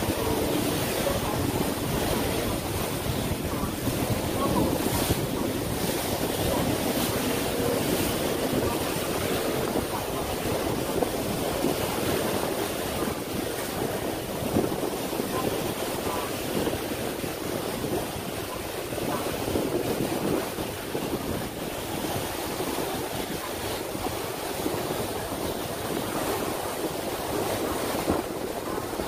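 Wind buffeting the microphone over a steady rush of waves on open water.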